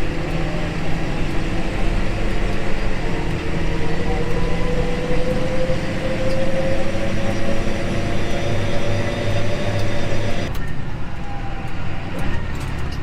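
A John Deere 8110 tractor's diesel engine runs steadily while under way. A whine climbs slowly in pitch for several seconds, then the sound changes abruptly about ten seconds in.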